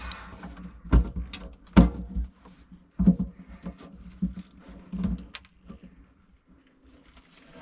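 Irregular clicks, taps and scrapes of a tool picking brittle old gasket off the underside of a kitchen sink drain flange, quieter near the end.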